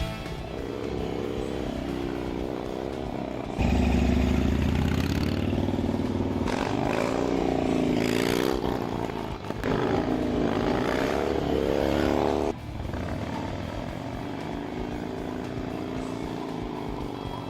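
Harley-Davidson motorcycle engines running and revving, the pitch rising and falling. The sound jumps louder a few seconds in and cuts off abruptly to a quieter engine about two-thirds of the way through, as across edited shots.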